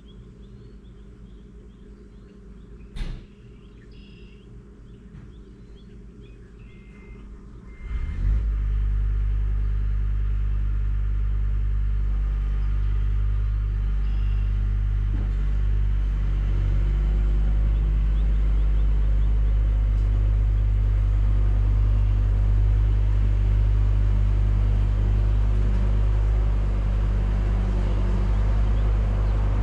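An engine starts about eight seconds in and then runs steadily with a low, even hum. Before it, faint bird chirps and a single sharp knock.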